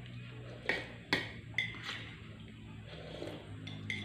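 Metal spoons clinking and scraping against plates as two people eat, with about four sharp clinks in the first two seconds and another near the end.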